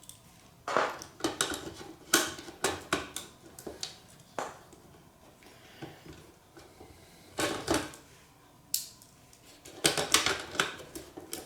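A small right-angle ratchet with an 8 mm socket being worked on a nut: scattered sharp metallic clicks and clinks, irregular, with a denser cluster near the end.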